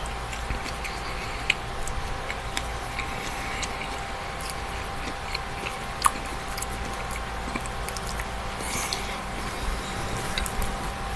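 A person chewing spinach salad close to the microphone, with scattered small clicks from the mouth. A steady hum runs underneath.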